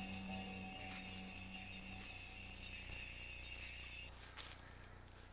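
Insects chirring steadily at a high pitch in forest ambience, dropping away about four seconds in. A soft held note of background music fades out about two seconds in.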